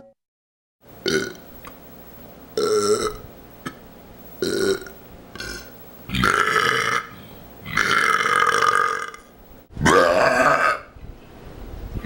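A man burping loudly, one burp after another: about six big burps with a few small ones between, short at first and longer, drawn-out ones in the second half.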